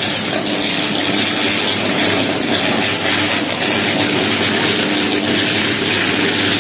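Overhead electrical cable short-circuiting and arcing, burning continuously: a loud, steady rushing noise over a low electrical hum, with no separate bangs.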